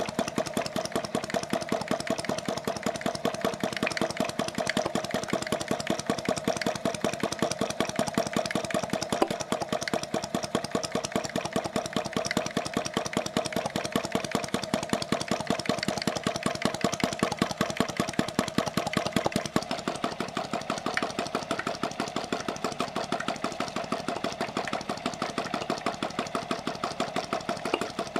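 Small model flame-eater (vacuum) engine running on its gas flame, its crank and valve gear making a rapid, even clatter, with a steady hum beneath it.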